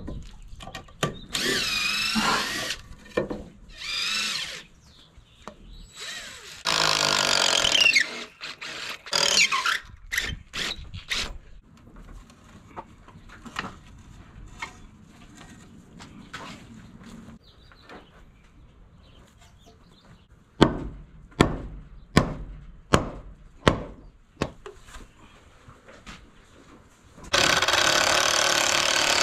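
Cordless drill backing screws out of wooden boards: several short runs with a wavering, squealing pitch. Later a row of sharp knocks, and the drill runs steadily again near the end.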